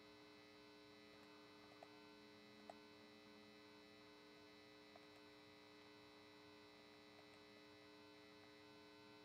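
Near silence: a faint steady electrical hum, with a few faint clicks.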